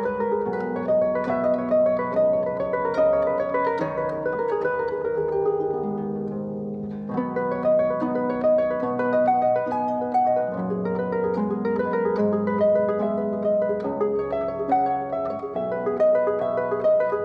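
Concert pedal harp played solo: a continuous flow of plucked notes with both hands, the strings ringing on under each new note. The playing grows briefly softer and thinner about six seconds in, then picks up again.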